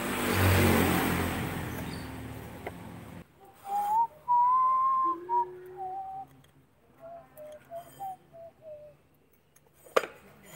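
A loud rush of noise with a low steady hum cuts off suddenly about three seconds in. Then a slow tune is whistled in held, wandering notes, and a single sharp click comes near the end.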